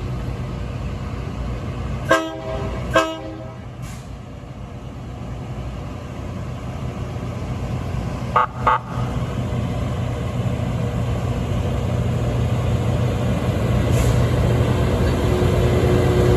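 Horn of the LORAM rail grinder train giving two short blasts a little under a second apart, then two quicker, higher toots several seconds later. Under them the train's diesel engines run steadily, growing louder near the end as it draws closer.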